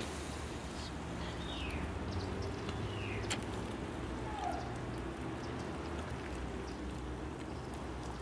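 Outdoor ambience around a wood fire: scattered small crackles, a sharper click about three seconds in, and a few short bird chirps sliding down in pitch, over a low steady hum.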